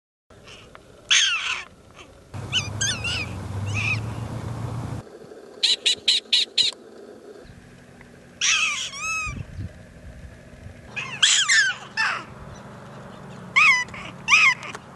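Prairie dogs calling: groups of short, high-pitched chirping notes that bend up and down in pitch, including a quick run of five clipped notes about six seconds in. The background hiss and hum change between groups, as from separate recordings edited together.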